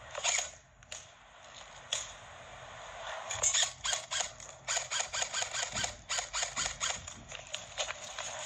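Airsoft electric rifle firing semi-automatic shots: a couple of single sharp clicks, then from about three seconds in a rapid, uneven string of sharp shots, about three or four a second.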